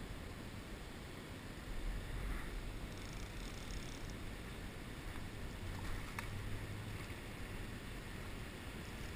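Steady rush of flowing river current, with a low rumble underneath.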